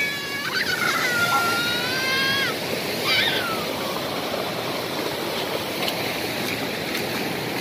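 Water of a small forest waterfall rushing over rocks into a stream pool, a steady noise. Over it in the first few seconds a child gives a long, high held shout, then a short call.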